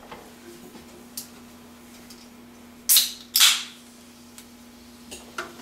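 A carbonated drink can is snapped open about three seconds in: a sharp crack of the pull tab, then a short fizzing hiss as the carbon dioxide escapes.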